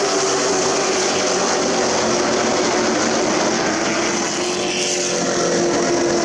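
Super Truck race engines running at speed around a short oval track, several engines heard together as a loud, steady sound.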